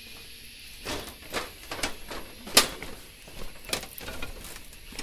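Footsteps going down metal stairs and a grated metal walkway: a string of uneven knocks and clanks, the loudest about two and a half seconds in, over a steady high hiss.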